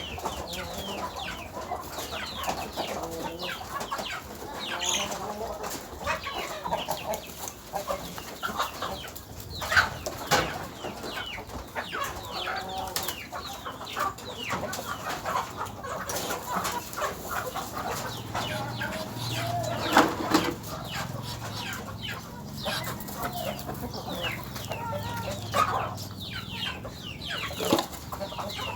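Chickens clucking with many short, scattered calls, broken by a few sharp knocks, the loudest about a third and two-thirds of the way through.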